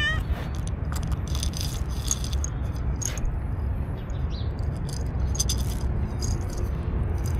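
Dry cat kibble rattling in a small plastic cup and spilling out onto stone paving in several short bursts of crisp clicking, over a steady low background rumble.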